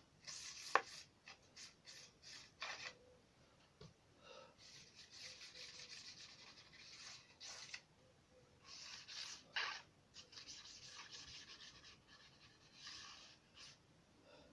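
Paintbrush scrubbing an ink wash over a paper model: a run of short, soft brushing strokes, with one sharp tap about a second in.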